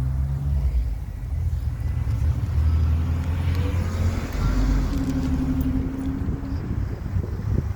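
A car passing on a road: its tyre and engine noise swell and fade around the middle, over a steady low traffic rumble.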